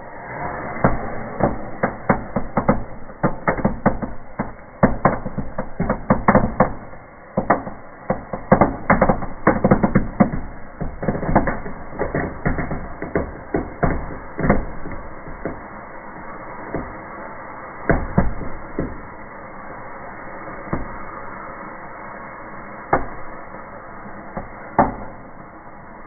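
Indoor fireplace fireworks going off inside a closed fireplace: small crackers bang in quick, crowded succession for about the first twelve seconds, then thin out to a few single bangs, over a steady hiss. The crackers crowd together because the fireplace's heat lit nearly all the fuses at once.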